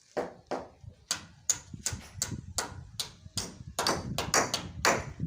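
Hammer driving nails into roofing timber: a steady run of sharp blows, about two to three a second, each with a brief ringing tap.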